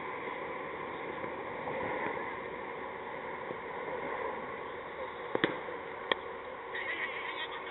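Steady wind noise on the microphone over an open field; about five seconds in, the sharp crack of a cricket bat meeting the ball as the batsman plays the delivery, followed by another short knock a moment later.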